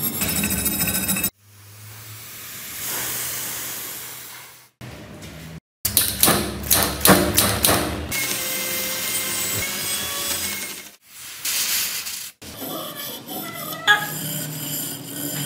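Small hand wire brush scratching over rusty steel in short back-and-forth strokes, scrubbing off loose rust, in several clips cut one after another. In between, a gas torch flame hisses steadily against the blade.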